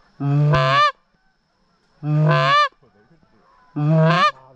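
Three single goose honks, each a low note breaking up to a higher one, about every two seconds. They come loud and clean, one at a time, as from a hunter's goose call.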